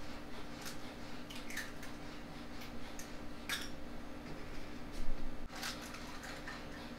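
Eggs being cracked one after another into a frying pan: short sharp cracks of eggshell and small soft squishes as the eggs go in, the loudest cracks about five seconds in, over a steady low hum.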